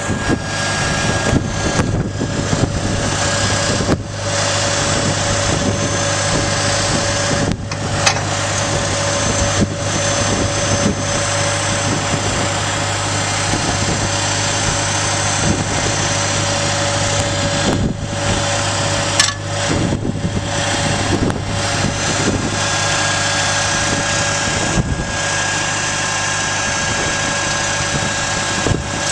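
Farm machine's diesel engine running steadily, a continuous drone with a faint whine, broken by a few brief clicks.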